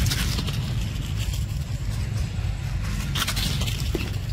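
Dry fallen leaves crackling and rustling as monkeys move over them, in short bursts at the start and around three seconds in, over a steady low rumble.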